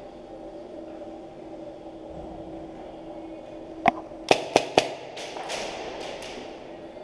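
Airsoft guns firing a quick string of sharp cracks about four seconds in: four loud shots within about a second, followed by three fainter ones. A steady hum runs underneath.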